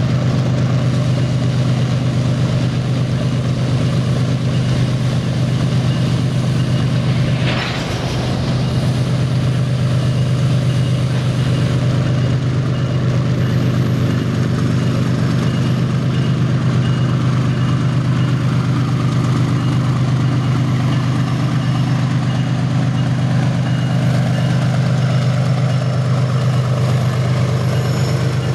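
Diesel-electric freight locomotives running as they come up close, a loud steady deep engine drone. A short hiss cuts in about seven and a half seconds in.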